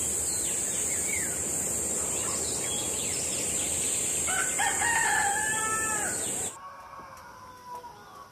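A cock crowing about four seconds in, over a steady high-pitched insect drone. Both cut off suddenly about six and a half seconds in, leaving faint bird calls.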